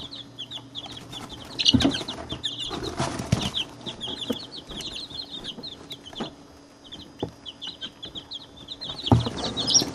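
A brooder full of chicks about a week to ten days old (Barred Rocks, Silver Laced Wyandottes, Blue Copper Marans and ISA Browns) peeping constantly in rapid high chirps. Bumps and rustles come close to the microphone about two seconds in, around three seconds in, and near the end, as chicks jostle against it.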